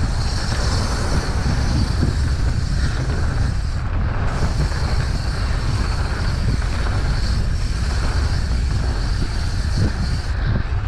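Wind buffeting the microphone of a camera carried on a fast mountain-bike descent: a steady low rumble with an even rush of riding noise over it.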